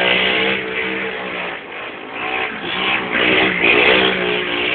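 Go-kart engine revving up and down as it circles, heard from inside a following car.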